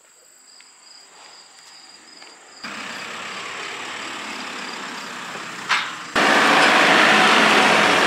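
Diesel engine of a JCB telehandler running as the machine drives close past. It is faint at first and gets much louder in two sudden steps, about two and a half seconds in and about six seconds in, and it is loudest near the end.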